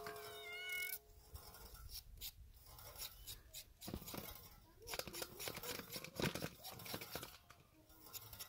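Irregular clatters, scrapes and rustles of hands working with cooking utensils and food. A ringing tone dies away in the first second.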